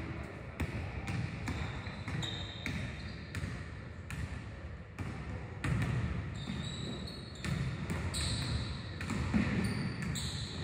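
Basketballs bouncing on a hardwood gym floor in an irregular run of sharp thuds, with several short, high squeaks of sneakers on the boards.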